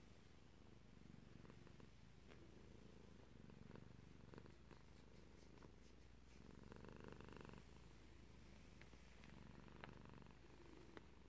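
Domestic cat purring softly and steadily, the purr swelling and easing in blocks of about a second with its breaths, a little louder about seven seconds in.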